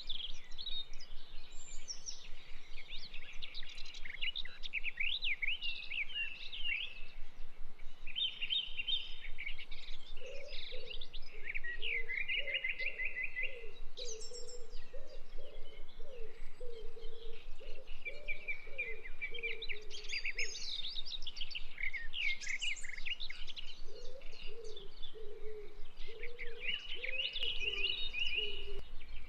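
Several small birds chirping and trilling together, with a lower, choppy repeated call from another bird in the middle and near the end.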